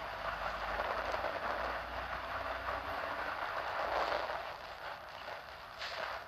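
Bus interior noise while under way: a low engine rumble under a steady rushing hiss of road and air noise, with a brief louder burst near the end.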